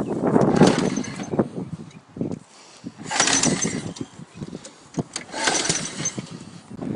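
Pull-start attempts on a homemade ride-on racing mower's engine: three pulls of the starter cord about two seconds apart, without the engine catching and running.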